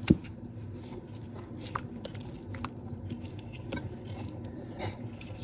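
Hand turning a chicken leg in a ceramic bowl of beaten egg wash: soft wet squelches and scattered small clicks, with one sharp knock at the very start.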